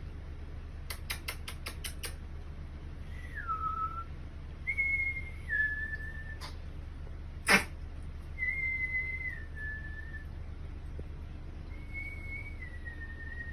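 Whistling in short calls, each a pure tone that steps down in pitch, four times with pauses between. A quick run of clicks comes about a second in, and a single sharp knock about midway.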